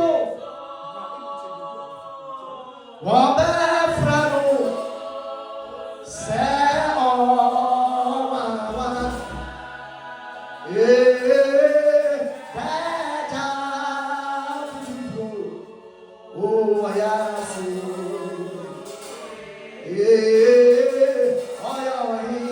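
Unaccompanied group singing of a slow song in Twi, in long held phrases that swell and fade every few seconds.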